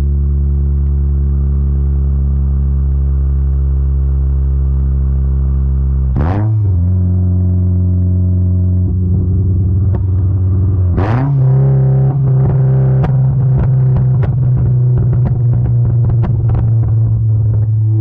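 Mazda MX-5 four-cylinder engine running through an exhaust with the baffle removed, heard right at the tailpipe: a steady, loud drone that twice steps up in pitch with a quick rev flare, about six and eleven seconds in. In the second half, irregular sharp crackles and pops come over the engine note.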